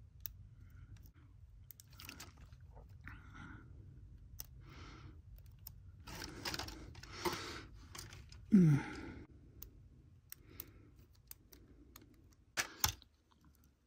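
Fingers handling small plastic LEGO bricks while pressing a sticker onto a 1x6 brick: scattered light clicks and rustles of plastic, with a couple of sharper clicks near the end. A short grunt from the builder a little past the middle.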